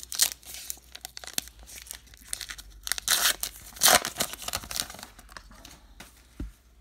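Foil wrapper of a baseball card pack being torn open and crinkled: a run of irregular ripping and crackling, loudest about three to four seconds in, with a single low thump near the end.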